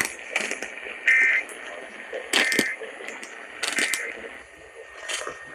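Three short warbling data-tone bursts a little over a second apart, typical of the EAS end-of-message code that closes a broadcast alert, over sharp crackles of radio static.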